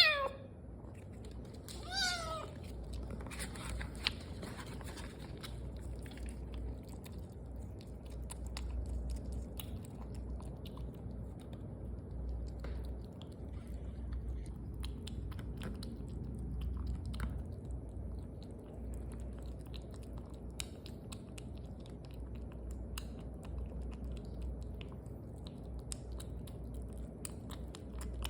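A cat meows twice at the start, two short calls falling in pitch. It then chews its food, with scattered small clicks.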